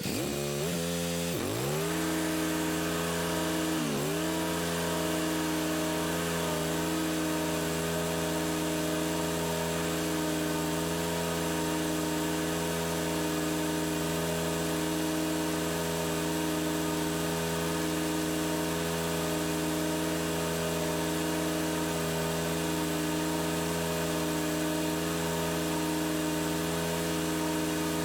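Engine of a Toro Z Master 60-inch zero-turn mower running, close to the microphone. It revs up over the first two seconds, dips briefly about four seconds in, then holds a steady pitch.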